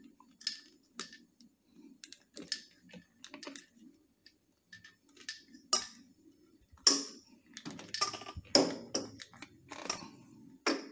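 Irregular clicks, knocks and rubbing as a heat-softened rubber water hose is worked by hand onto the plastic fitting of a BCD power inflator, getting louder and busier in the second half, over a faint steady low hum.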